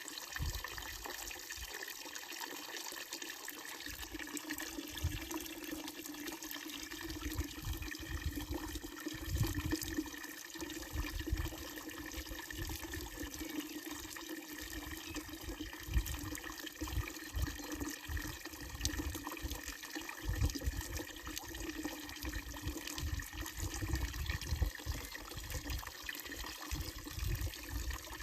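Water pouring steadily from the wooden trough spout of a fountain and splashing into its basin.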